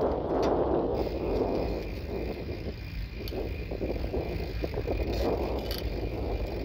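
Wind rushing over the microphone and tyre-on-road rumble from a bicycle riding along a paved road, with a swell near the start and a few light clicks later on.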